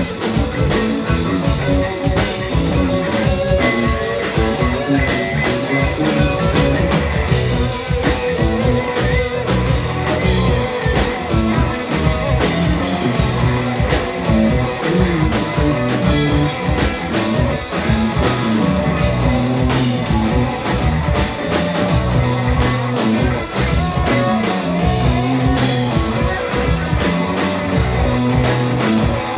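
Live rock band playing an instrumental passage, with electric guitar and bass over a drum kit and no vocals.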